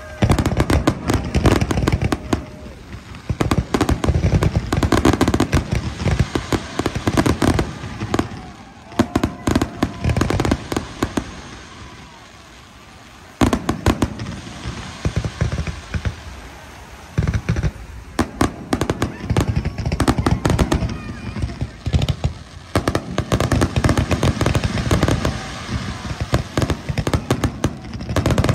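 Fireworks display: rapid volleys of shell bursts and crackling, with a short lull about halfway through before the bangs pick up again.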